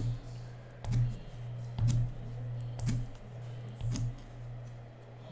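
Five sharp clicks, about one a second, each with a short low thump, over a steady low hum.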